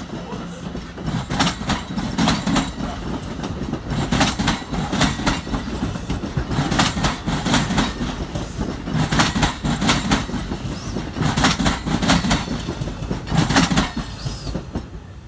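NJ Transit Multilevel bilevel passenger coaches rolling past close by: a steady rumble from the wheels on the rails, with groups of sharp wheel clacks about every two seconds. The sound drops off near the end as the last car passes.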